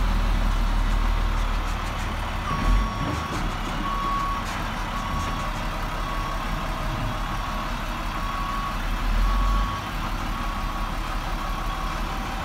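Flatbed truck's engine running with a steady low rumble as it manoeuvres, and about two and a half seconds in its reversing beeper starts, one beep about every second: the truck is backing up.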